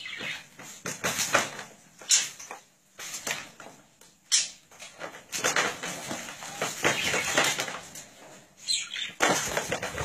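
Budgie and chihuahua puppies scuffling on a towel: irregular rustling bursts of fluttering wings and scrabbling paws, with a sharp knock about four seconds in.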